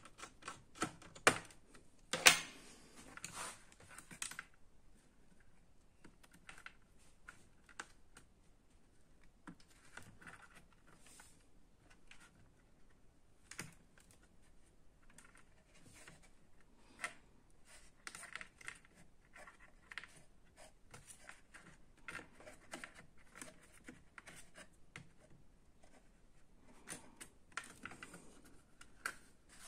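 Scattered light clicks, taps and rustles of hands handling plastic and metal parts inside an opened Acer Extensa EX2519 laptop, working at the wireless card and its antenna cables. Two sharper knocks come about one and two seconds in.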